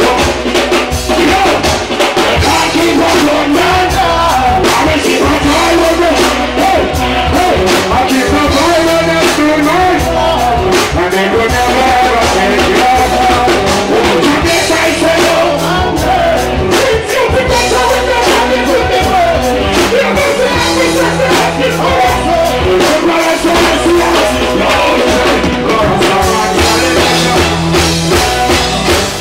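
Live reggae performance: a male singer singing into a microphone over a full band with drums, bass, electric guitar and keyboards.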